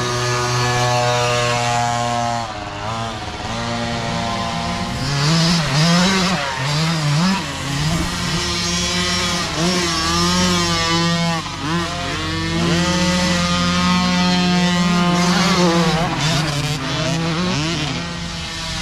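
Mini dirt bike engines revving as several riders pass one after another, the pitch climbing and dropping again and again with throttle and gear changes, with more than one engine running at once at times.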